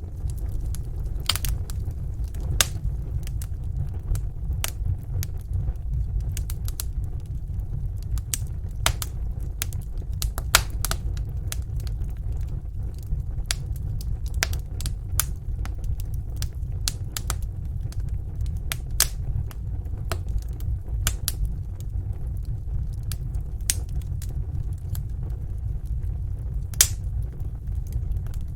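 Fire in a fireplace crackling, with irregular sharp pops and snaps over a low steady rumble.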